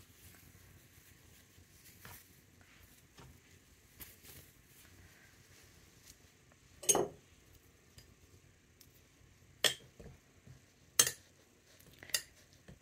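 Quiet handling of fabric broken by a few sharp clinks and knocks of a glass jar as fabric is pushed into it: the loudest about seven seconds in, three more in the last few seconds.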